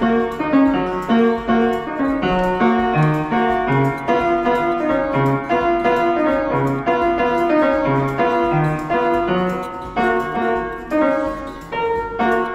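Upright piano being played by hand: a melody over low bass notes that repeat in an even rhythm.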